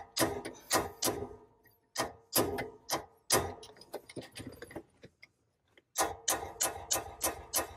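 Hammer blows driving an alignment pin into an M5OD transmission shifter body, metal on metal with a short ring after each strike. The strikes come in uneven groups, stop for a second or so past the middle, then come quickly, about three a second, near the end.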